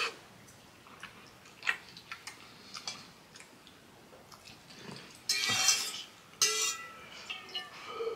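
A metal fork clinking and scraping against a stainless steel pot a few times in short, sharp ticks. About five seconds in and again at six and a half seconds come two louder hissing bursts of mouth noise from the eater.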